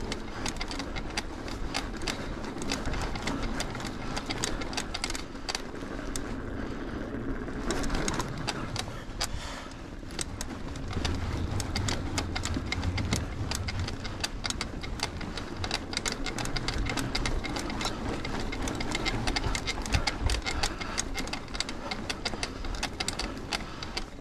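Mountain bike rolling over a wooden plank boardwalk: the tyres clatter across the slats in a rapid, continuous run of clicks and knocks, with the bike rattling.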